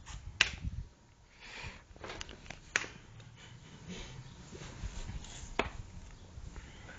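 A person gulping water from a thin plastic bottle, with three sharp clicks a few seconds apart over a low rumble.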